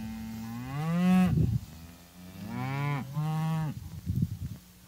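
Cattle mooing: two long moos, the first rising in pitch over about a second and a half, the second starting about two and a half seconds in.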